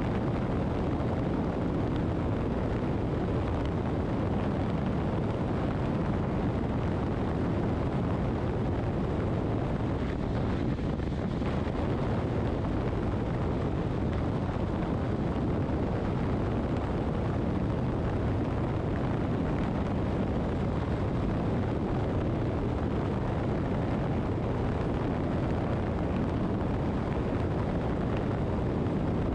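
Motorcycle cruising at a steady speed: a continuous rush of wind and road noise with the engine beneath, holding even throughout.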